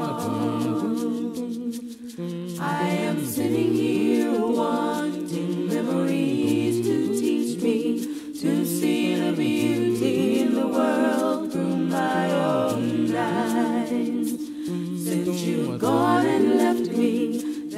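A cappella vocal music: several voices singing together in harmony without instruments, with a brief lull about two seconds in.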